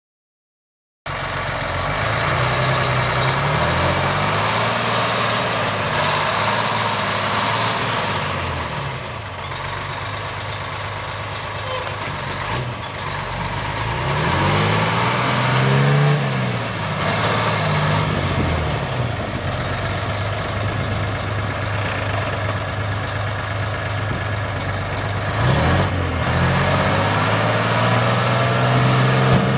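Detroit Diesel Silver 6V-92 two-stroke V6 diesel in a 1978 Ford L8000 dump truck running, its pitch rising and falling several times as it is revved or pulls through the gears, with a short sharp knock about 25 seconds in.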